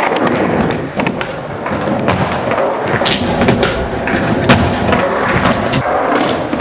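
Skateboard wheels rolling over wooden skatepark ramps, with sharp clacks and slaps of boards hitting the surface, the loudest about four and a half seconds in.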